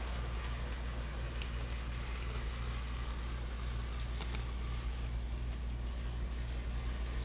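Bachmann Gordon model train locomotive running on its track: a steady electric-motor hum with wheels rattling over the rails and a few sharp clicks. The rattle comes from the old track, not the engine.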